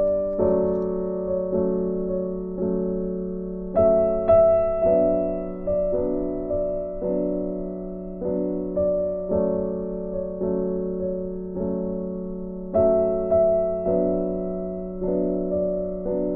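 Soft background piano music: slow chords, each struck and left to ring and fade, a new one about every half second to second.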